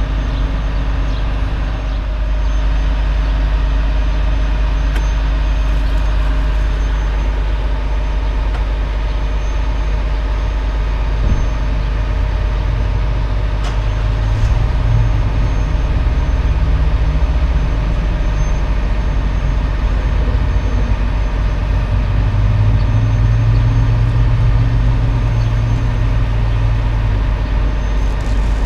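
Heavy diesel truck engine idling steadily, a deep even rumble. A deeper engine note swells around the middle and again for several seconds later on, as pickup trucks drive up close.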